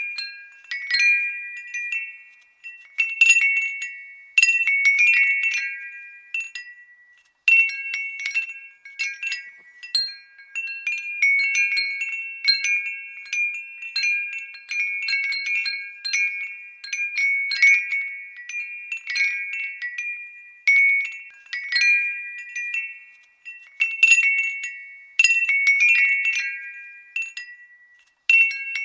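Glass wind bell (wind chime) tinkling as the breeze sets it striking: bright, high ringing tones in irregular clusters, each strike fading away, with a few short pauses.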